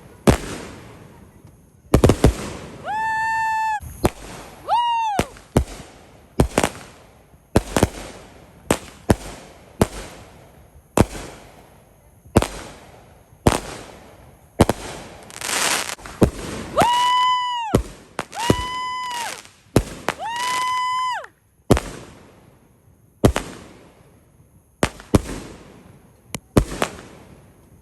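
New Year fireworks and firecrackers going off: a dense, irregular run of sharp bangs and cracks. Five shrill whistling tones, each held about a second, cut through: two in the first few seconds and three close together past the middle.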